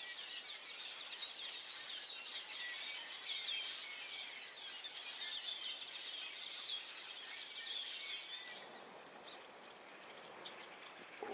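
A large flock of small birds chattering together in a tree, a dense mass of overlapping high chirps. The chatter thins out and fades about eight seconds in.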